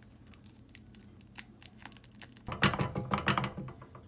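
Plastic ketchup sachet crinkling as it is squeezed out over a pan, with small clicks and a louder burst of rustling and clatter about two and a half seconds in, over a steady low hum.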